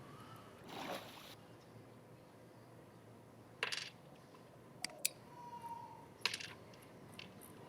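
A few sharp, light clicks and taps, a couple close together about five seconds in, over faint room tone, with a brief rustle about a second in.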